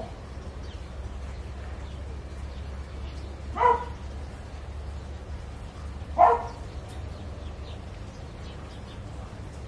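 A dog barks twice, two short single barks about two and a half seconds apart, over a steady low hum.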